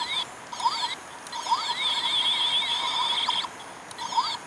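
Battery-powered toy bubble gun playing its electronic sound effect: chirping, sweeping electronic tones that start and stop in spells as the trigger is pressed, with one longer spell in the middle.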